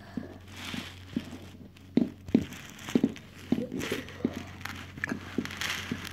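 Plastic Schleich toy horse figure tapped along a hard floor by hand, its hooves giving irregular light knocks, with rustling handling noise in between.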